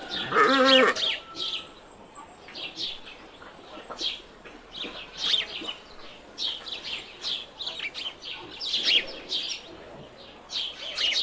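Small birds chirping in quick, scattered chirps, with one loud quavering bleat from a sheep or goat in the first second.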